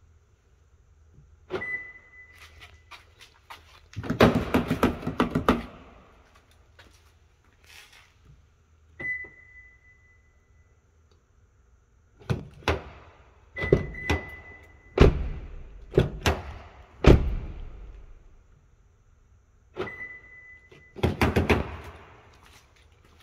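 Fifth-generation Toyota 4Runner's door being locked and checked again and again: a short high beep four times, and clusters of clicks, rattles and thunks from the exterior door handle being pulled and snapping back against the locked latch.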